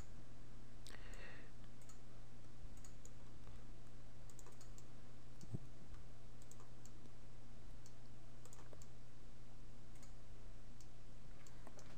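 Faint, scattered computer mouse clicks over a steady low electrical hum.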